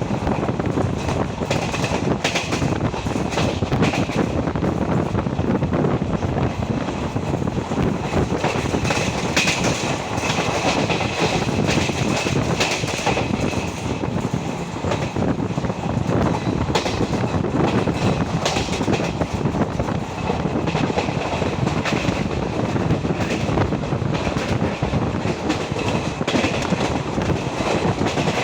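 Indian Railways ICF passenger coach running on the track, heard from on board: a steady rumble of wheels on rails with irregular clatter and knocks over the joints.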